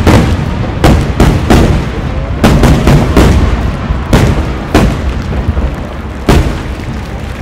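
Large aerial firework shells bursting in quick succession, a string of sharp booms each followed by a rumble. The booms come thick for about five seconds, one last one comes about six seconds in, and then the rumble fades.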